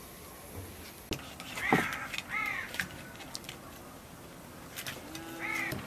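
Three short, harsh bird calls: a loud one a little under two seconds in, another just after, and a third near the end. Under them are a few faint sharp taps of a knife working a fish fillet on a wooden board.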